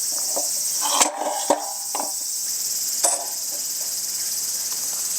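A steady, high-pitched chorus of crickets chirring, with a few light knocks and clicks about one, one and a half, and three seconds in.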